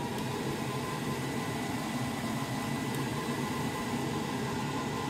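Power station cooling fan whirring steadily under a 200-watt charging load. It starts to wind down at the very end as the overloaded power station cuts out.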